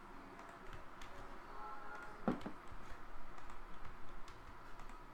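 Typing and clicking on a computer keyboard, in irregular small clicks with one louder knock a little over two seconds in.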